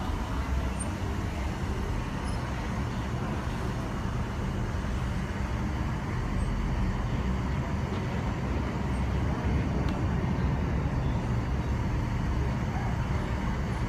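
Vertical wind tunnel for indoor skydiving running: a steady rush of air and fan rumble with its weight at the low end and no break.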